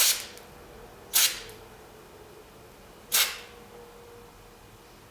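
Three short puffs of silicone lubricant spray from an aerosol can, each a brief hiss, the second about a second after the first and the third two seconds later, as it is sprayed into a squeaky door lock.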